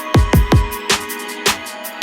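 Electronic music with heavy booming kick drums and a sustained synth pad; an instrumental stretch of the song, with no vocals here.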